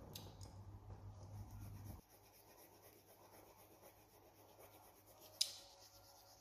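Faint scratching of a coloured pencil on paper, with one sharp click about five seconds in.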